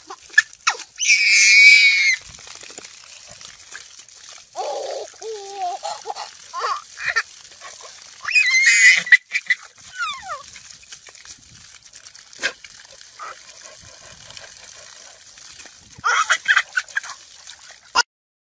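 A baby shrieking with laughter in several loud, high-pitched, wavering bursts, over the faint steady hiss of water spraying from a garden hose.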